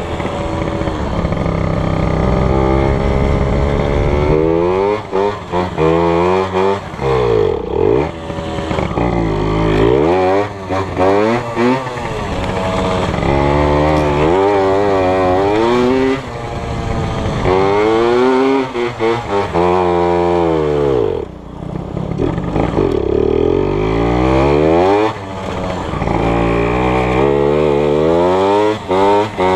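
Dirt bike engine being ridden hard, its pitch climbing and falling again and again as the throttle is opened, shifted and shut, with a brief dip about two-thirds of the way through.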